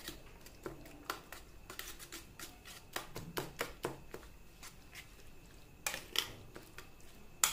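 Metal fork beating raw eggs with chopped vegetables in a stainless-steel bowl: irregular clinks and scrapes of the fork against the bowl, a few a second, with a louder clink near the end.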